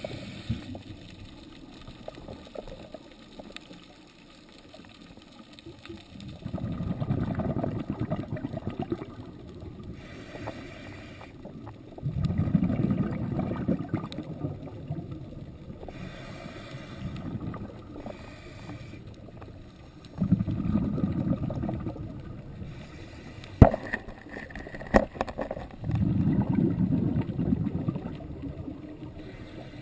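Scuba regulator underwater: the diver's exhaled air bubbles out in bursts of two to three seconds every six to eight seconds, with fainter hissing breaths in between. Two sharp clicks come a little after the middle.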